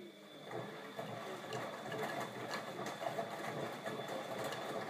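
Bosch Maxx 40 WFC2445 washing machine running. Its sound grows louder within the first second, then runs steadily with a thin high whine.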